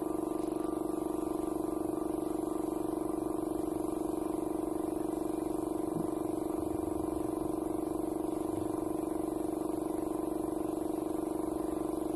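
Air compressor running with a steady drone, feeding a paint spray gun through its air hose.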